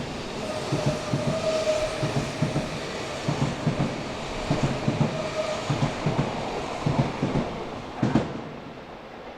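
Odakyu Odawara Line train running over a level crossing, its wheels clacking over the rail joints in repeated pairs. A faint tone comes and goes, and the sound falls away about eight seconds in.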